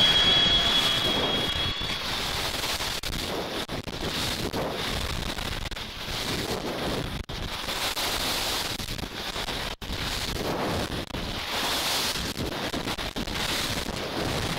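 Wind buffeting the microphone of a camera carried down a ski slope: a rough, uneven rushing that cuts out sharply twice for an instant.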